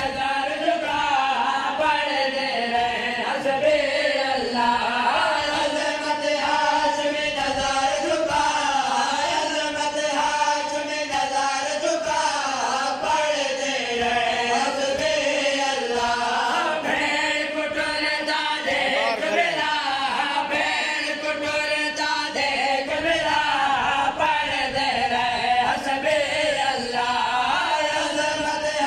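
A group of men chanting a noha, a Shia Muharram lament, in unison, with the mourners' rhythmic matam (open-hand chest-beating) underneath.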